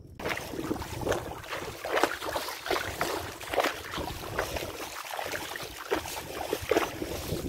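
Water splashing in irregular bursts, with wind buffeting the microphone.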